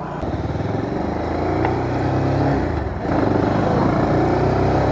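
Bajaj Pulsar 220F's single-cylinder engine accelerating away from a standstill, rising in pitch, with a short break about three seconds in at a gear change, then pulling on.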